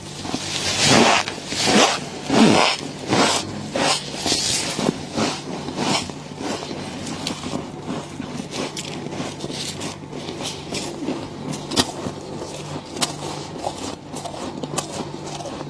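Thick freezer frost being scraped off in long, rasping strokes, about one every 0.7 s for the first six seconds. It then gives way to lighter, quicker scratching.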